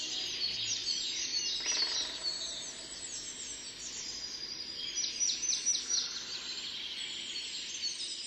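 Small birds chirping and twittering, many quick downward-sweeping calls overlapping, with a cluster of sharper calls a little past the middle.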